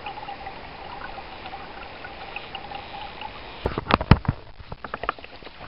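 Steady running river water, then a quick cluster of sharp knocks and splashes about two-thirds of the way in, the loudest sounds here.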